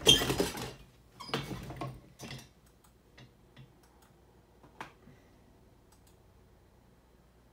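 Loud rustling and shuffling as someone sits down at a computer desk, three bursts in the first two and a half seconds, then a few faint, scattered computer-mouse clicks.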